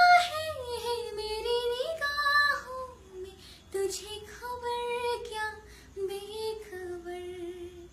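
A young woman singing a slow Hindi film song with no accompaniment. She sings long held notes that slide between pitches, with short breaths between phrases, and ends on a long low note near the end.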